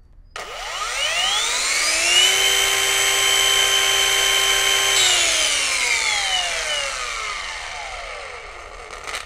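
Boda brushless twin-blade wall chaser running with no load: its whine rises over about two seconds as the soft start brings the motor up to speed, holds steady, then falls away over about four seconds as the diamond blades coast down after switch-off.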